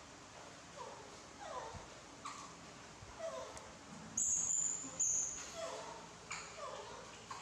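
Baby monkey whimpering: a run of short calls, each falling in pitch, about one a second, with two loud high squeaks about four and five seconds in.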